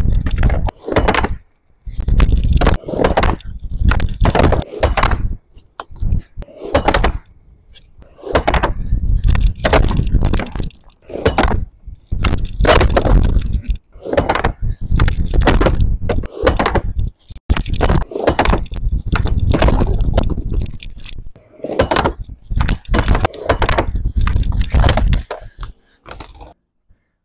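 Skateboard rolling and clattering on a plywood quarter pipe: wheel rumble on the wood, with loud knocks and slaps as the board hits the ramp and the rider lands or bails. It comes as a run of short stretches that start and stop abruptly.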